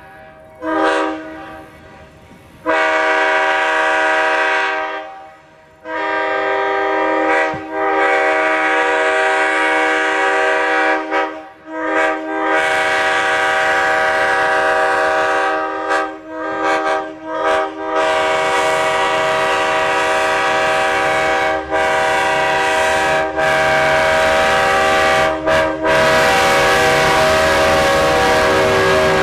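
Train air horn sounding several notes together. It gives two quick toots, then long blasts with brief breaks, held longest over the last half.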